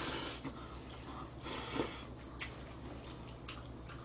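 Spaghetti noodles slurped off chopsticks: a noisy hiss at the start and again about a second and a half in, with soft chewing and small clicks between.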